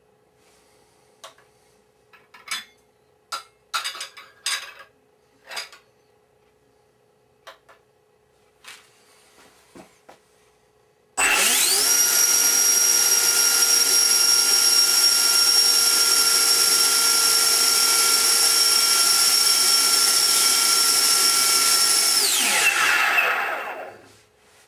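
Change Sun CS12 12-blade 90 mm electric ducted fan. After a scatter of clicks and knocks it spins up abruptly to a loud, steady high-pitched whine, holds for about eleven seconds, then winds down with a falling pitch near the end.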